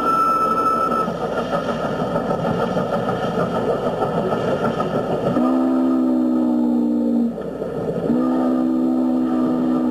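Southern Pacific 4449, a GS-4 4-8-4 steam locomotive, running past with its train, the steam exhaust and the rolling of the cars a steady noise. A brief high tone comes in the first second. The locomotive's chime whistle then blows two long blasts, one from about five seconds in and one from about eight seconds in, each sliding slightly in pitch as it opens and closes.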